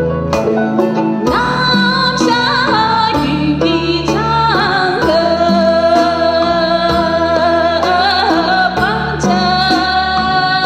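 A woman singing a melody through a microphone over instrumental accompaniment with sustained low notes; her voice comes in strongly about a second in.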